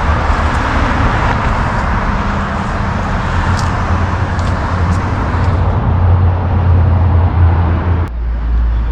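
A car engine running steadily as a low hum. A little after eight seconds the sound changes abruptly and the higher noise drops away.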